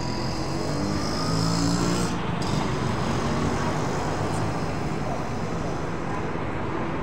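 Road traffic noise: a steady rumble of passing vehicles' engines and tyres.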